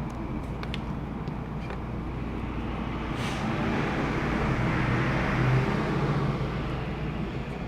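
A steady low hum, with a rumble that swells for a few seconds and fades like a passing road vehicle, and a few faint clicks.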